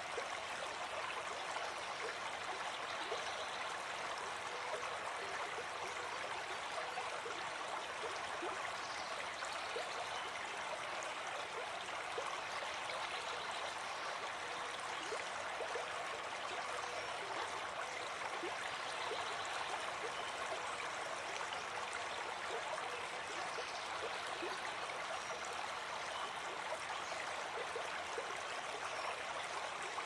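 River rapids: fast water rushing and splashing over rocks in white water, a steady, unbroken rush.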